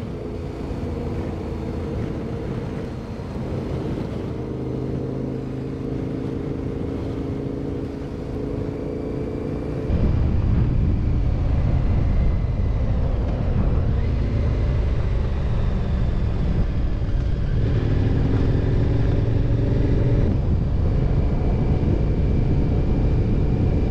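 KTM 1090 Adventure R's V-twin engine running steadily at cruising speed, heard from on the bike. About ten seconds in the sound jumps to a louder, deeper rumble.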